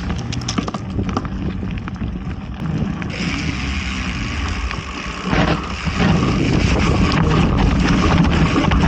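Wind buffeting the microphone while riding a mountain bike, with tyre rumble and scattered clicks and rattles from the bike rolling over leaf-strewn ground and pavement. The noise grows louder about six seconds in.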